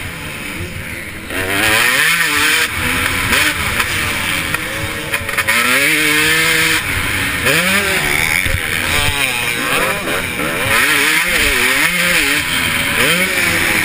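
KTM 250SX two-stroke motocross engine ridden hard, its pitch rising and falling again and again as the rider opens and closes the throttle and shifts. The throttle is eased briefly in the first second or so, then the bike is loud the rest of the way.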